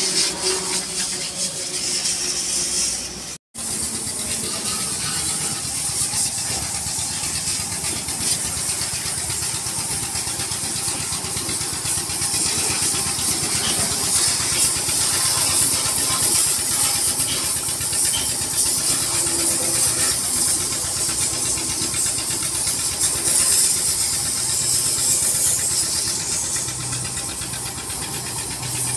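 High-pressure water jet spraying under a truck: a steady loud hiss over the low hum of the pressure washer's pump motor. It drops out briefly about three and a half seconds in.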